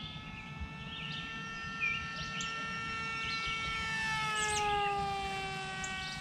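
Mini AR Wing flying wing's electric motor and propeller whining steadily overhead, growing louder and dropping in pitch about four to five seconds in. Birds chirp throughout.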